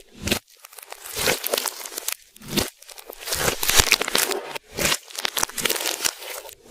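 Slime being squeezed and stretched by hand, a sticky crackling and popping that comes in spells with brief pauses.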